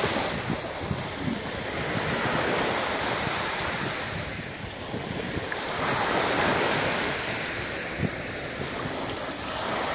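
Small sea waves breaking and washing up on a sandy beach, the surf rising and falling as each wave comes in.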